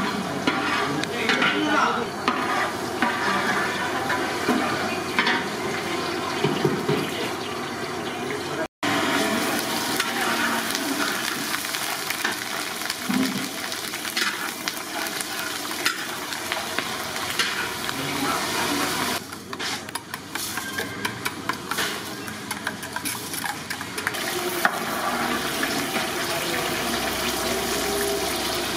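Green chillies sizzling in hot oil in a large steel kadai, with a long metal spatula scraping and stirring against the pan.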